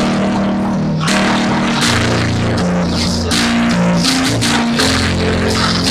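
Live church worship music: a band with electric guitar, bass and drum kit playing held chords that change every second or so.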